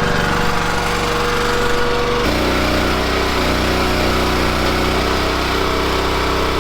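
Log splitter's small engine running steadily, its tone shifting abruptly about two seconds in and again near the end.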